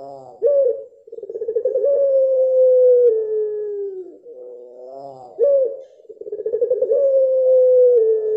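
Barbary dove of the puter pelung long-calling type giving its drawn-out coo twice. Each call is a short rising note, then a quavering call that settles into one long tone falling slowly in pitch over about three seconds.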